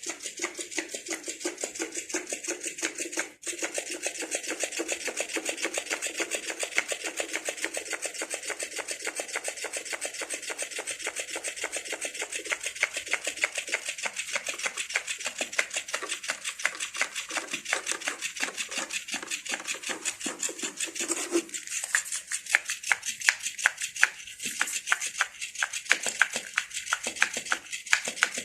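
Cat eating, a fast, steady run of small crunchy chewing clicks that gets louder and sharper in the last quarter.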